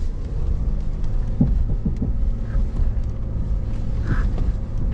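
Ford pickup's engine running low and steady as the truck crawls over a slippery, rutted grass slope, with a couple of dull knocks about one and a half and two seconds in.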